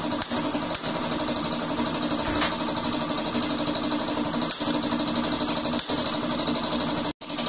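Bajaj CT100's single-cylinder four-stroke engine running steadily at idle with the clutch cover removed, its exposed clutch chattering along. The sound cuts out for an instant near the end.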